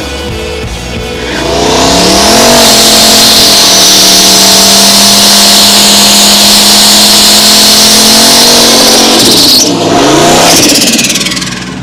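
Turbocharged 4.8-litre LS V8 in a 1985 GMC pickup doing a burnout. The engine revs up and is held at high, steady revs while the rear tyres spin and squeal. About ten seconds in the revs drop, rise briefly again, then fall away.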